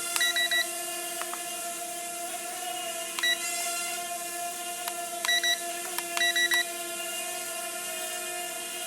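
RealACC R20 mini quadcopter's motors and propellers humming steadily in a hover, with clusters of short high beeps from its controller as buttons are pressed, near the start, about three seconds in and twice more a couple of seconds later.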